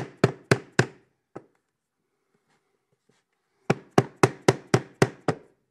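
Hammer blows knocking laminate floor planks together to close the joint, about four a second. There are four sharp blows, then a pause, then a run of seven more near the end.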